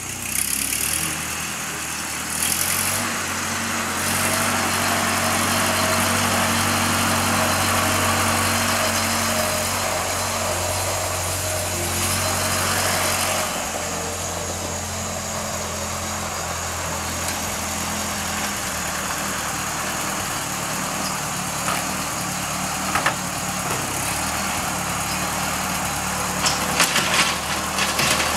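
1939 Ford 9N tractor's four-cylinder flathead engine running steadily as the tractor is driven, a little louder in the first half and easing off after about thirteen seconds. A few sharp clanks come near the end as the rear blade scrapes the dirt.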